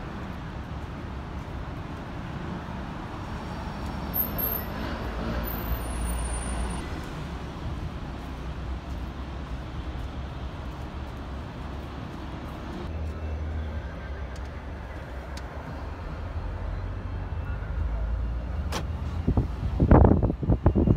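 Road traffic around a bus and taxi stand: a steady low rumble of vehicle engines, with a run of loud thumps near the end.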